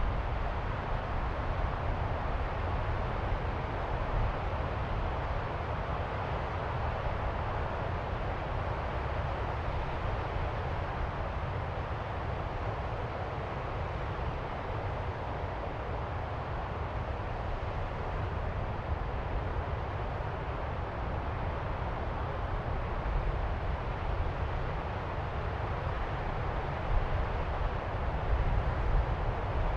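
Distant ocean surf: a steady low roar of waves, with no separate breakers standing out, swelling slightly louder near the end.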